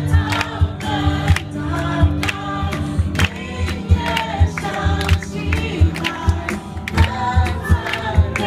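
Congregation singing a worship song together with amplified music, over a steady clapped and drummed beat.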